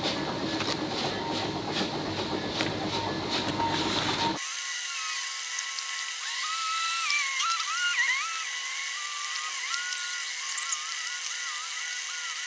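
Steel shovel scraping and biting into a gravel pile, with gravel sliding into plastic buckets, in a busy run of strokes. About four seconds in it cuts off suddenly to a thin, tinny melody of music with no low end.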